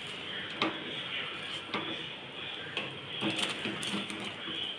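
Wooden spatula stirring thick cornflour halwa in a stainless steel pan, scraping against the pan with a few light knocks.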